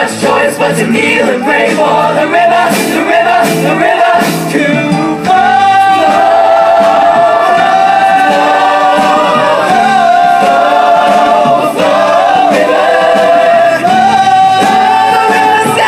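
A group of teenage singers singing together in harmony over a live band of drums, electric guitar and keyboard. From about five seconds in the voices hold long notes.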